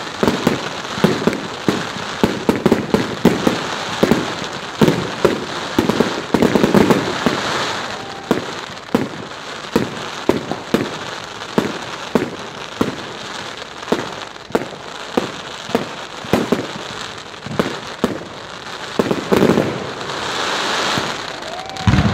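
Firework display: a rapid run of aerial shell bursts over a steady crackle of glittering stars. The bangs come thick and fast at first, then settle to about one a second, with a louder, deeper bang near the end.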